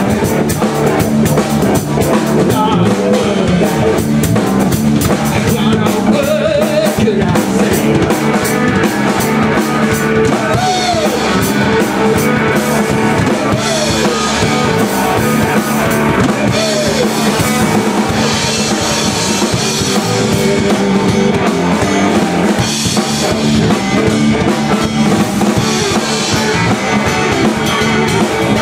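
Live blues-rock band playing an instrumental passage: electric guitar, electric bass and a drum kit with cymbals, with a few sliding notes standing out.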